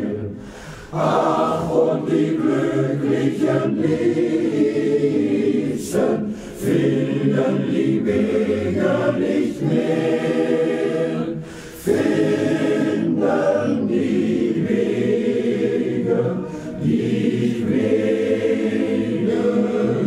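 Choir singing a German song, phrase by phrase, with short breaks between phrases about every five seconds.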